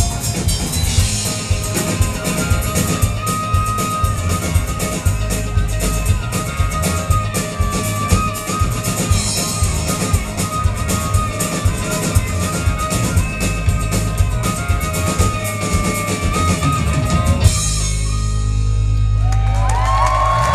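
Live rock band playing an instrumental passage with drum kit, electric and acoustic guitars and bass guitar. About three seconds before the end the drumming stops and the band lets a final chord ring out.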